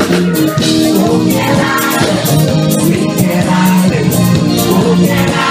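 Live band music at full volume through the PA: a steady upbeat groove with drum kit, electric guitar and keyboard.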